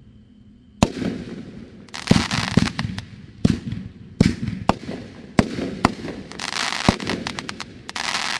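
A 500 g, 16-shot consumer fireworks cake firing. Starting about a second in, it gives a run of sharp launch and burst reports, with stretches of dense crackling in between.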